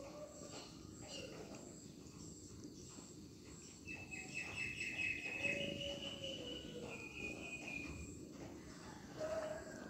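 Faint background chirping and trilling of birds and insects, louder for a few seconds in the middle, with a few soft taps.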